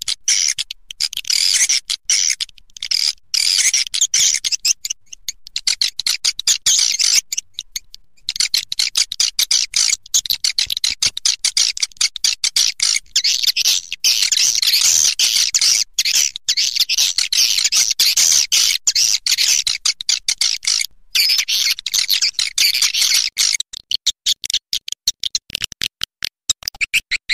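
Swiftlet calls, a lure recording for roosting swiftlets: dense, rapid, high-pitched chattering twitters. In the last few seconds they give way to a regular, fast series of sharp clicks.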